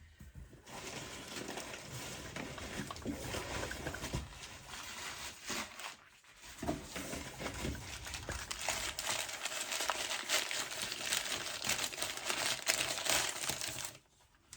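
Packing paper crinkling and rustling as a wrapped crystal is unwrapped, with a short lull about six seconds in.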